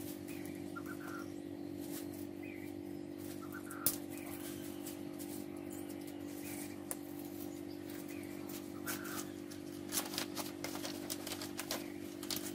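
Outdoor ambience: faint bird chirps recurring about once a second over a steady low hum, with scattered sharp clicks that come more often in the last few seconds.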